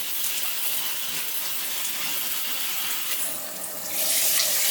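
Shower water spraying steadily from a rain shower head and handheld shower combo. About three seconds in the spray dips briefly, then comes back louder.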